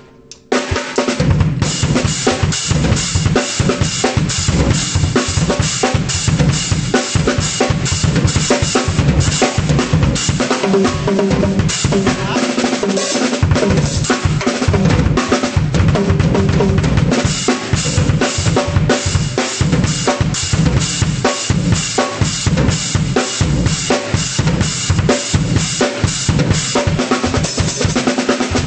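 Acoustic drum kit played with sticks: a dense run of snare, bass drum and cymbal strokes. It starts about half a second in after a brief pause, and the bass drum drops out for a moment around the middle.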